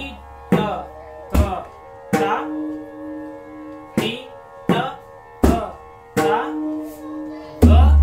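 Pakhawaj played stroke by stroke, about one a second, demonstrating its basic bols. Sharp slaps on the treble head alternate with deep booms from the bass head, and a couple of strokes leave a ringing tone. The loudest and longest boom comes near the end.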